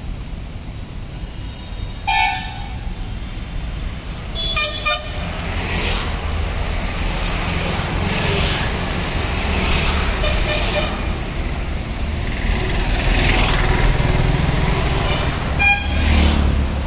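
Road traffic: a steady low rumble of vehicle engines, broken by several short horn toots, the loudest about two seconds in, a double toot around five seconds in and another near the end.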